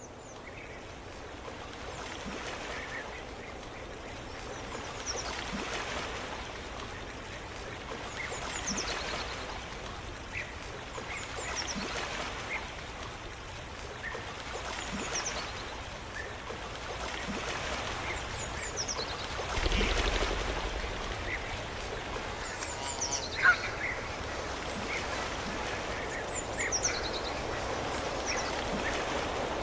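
Nature ambience: small birds chirping over a soft rushing background that swells and eases every few seconds, with a single sharp click about 23 seconds in.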